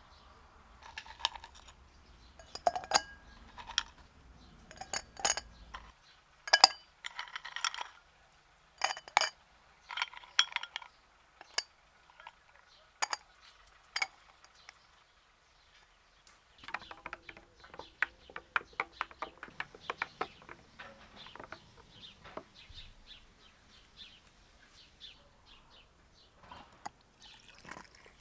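Glass and dishware being handled: a series of sharp separate clinks and knocks, then, a little past halfway, a run of quick light taps, about four or five a second, that thins out toward the end.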